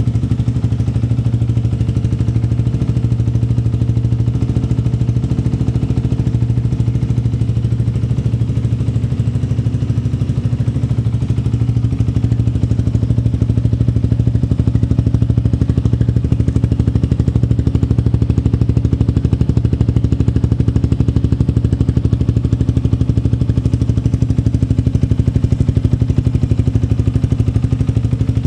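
Yamaha R15's single-cylinder four-stroke engine idling steadily through an Akrapovic-branded aftermarket slip-on muffler, with an even, rapid exhaust pulse.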